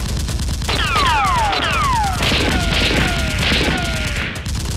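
Rapid automatic-gunfire sound effect for the toy blasters, shot after shot in quick succession, with about six whistling tones that fall in pitch laid over it.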